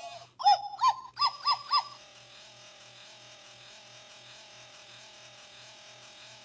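Rock iDog Pup robotic toy dog switching on: about five short electronic bark-like chirps in the first two seconds, then a quieter, steady, slightly wavering electronic tone.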